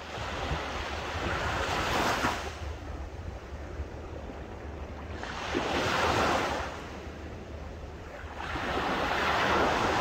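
Small waves breaking at the shoreline and washing up the sand, three surges of surf each swelling and fading over a second or two, about two, six and nine and a half seconds in, over a low steady rumble.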